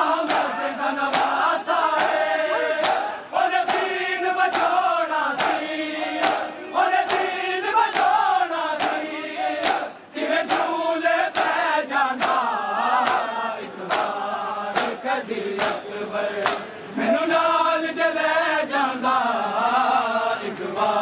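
A large crowd of men chanting a Punjabi noha together, with hands slapping bare chests in time (matam) about twice a second.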